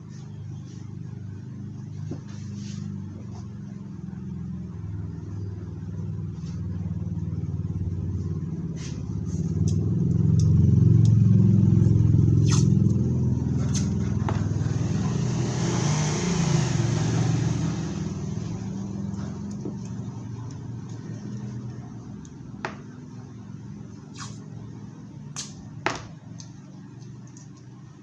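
A motor vehicle's engine passing close by, swelling over about ten seconds, loudest a little before halfway, then slowly fading away, with a few small sharp clicks over it.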